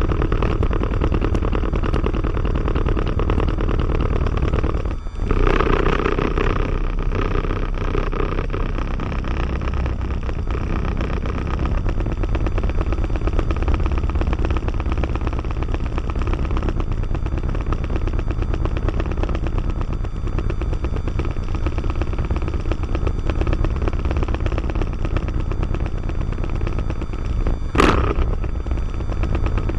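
Diamond DA20-C1's four-cylinder Continental IO-240 engine and propeller running steadily as the aircraft taxis, with a brief dip in the sound about five seconds in and a short sharp sound near the end.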